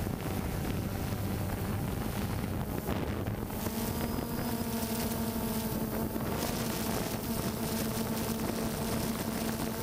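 Multirotor camera drone's motors and propellers humming steadily, stepping up in pitch and growing fuller about three and a half seconds in as the drone climbs, with wind buffeting the microphone.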